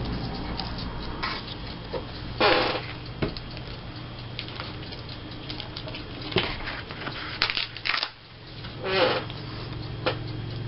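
Paper and small craft pieces being handled on a tabletop: scattered rustles, crinkles and light taps, a few louder ones around the middle, over a faint low hum.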